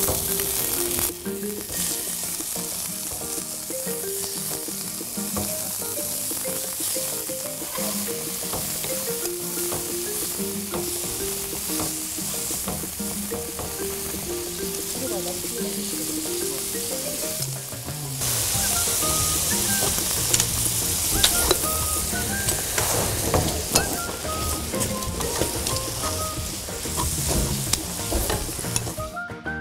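Oysters sizzling as they fry in a stainless steel pan on a portable gas burner. From about 18 s in the sizzle is louder, with cabbage in the pan and chopsticks clicking against it as they stir.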